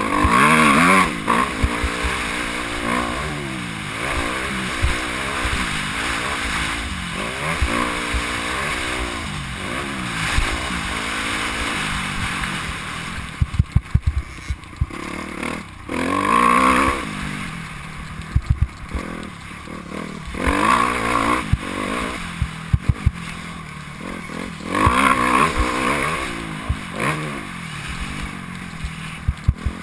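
Motocross bike engine heard from a helmet-mounted camera, revving up and falling back again and again as the rider accelerates and shifts around a dirt track. There are a few sharp knocks about halfway through and again a little later.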